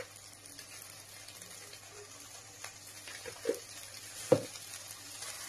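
Sliced onion, capsicum, tomato and carrot frying in oil in a kadai: a soft, steady sizzle. A few light knocks land near the middle, the sharpest about four seconds in.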